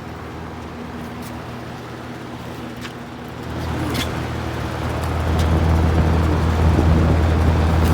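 Holmes HABF21 box fan running on its high setting: a steady low hum from the motor and blades that grows louder from about three and a half seconds in, then holds.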